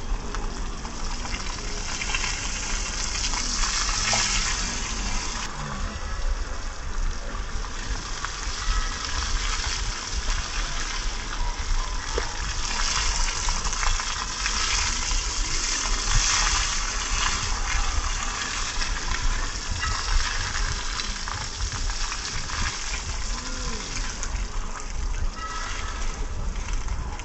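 A jet of water from a hose spraying onto an elephant's back and splashing down onto wet paving: a steady hiss.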